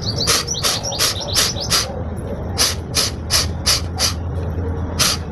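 Sharp, forceful exhalations through the nose, about three a second in two runs with a short pause about two seconds in: kapalbhati-style nasal blowing to expel the saline water left in the nose after jal neti.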